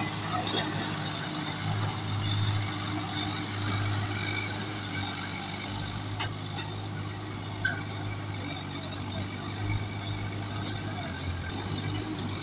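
Swaraj 744 FE tractor's three-cylinder diesel engine working under load, pulling a loaded trailer through soft mud. It runs as a steady low engine note that swells and eases a few times, with a couple of brief sharp clicks in the middle.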